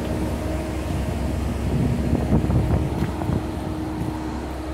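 Diesel locomotive of a commuter train running with a steady hum and low rumble as the train rolls slowly away, with some clattering from the wheels over the rails a couple of seconds in.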